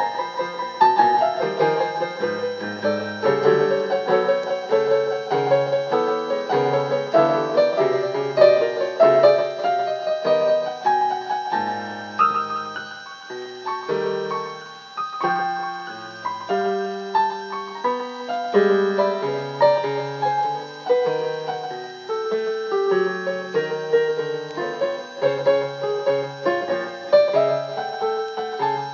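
Piano music: a melody over a moving bass line, with a softer passage near the middle.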